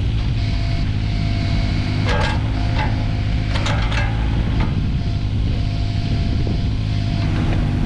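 Kubota KX016-4 mini excavator's diesel engine running steadily, with a few short squeals about two to four seconds in.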